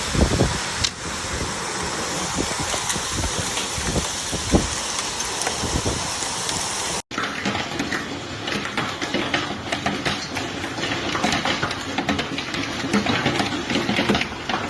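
Heavy rain pouring in a thunderstorm, in two stretches cut together about halfway through; the second stretch is full of quick sharp taps.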